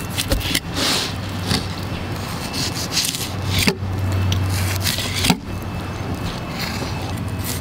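A knife being worked in short sawing strokes along a pompano's backbone to cut away a fillet, a continuous rasping scrape of blade on flesh and bone. A steady low hum runs underneath.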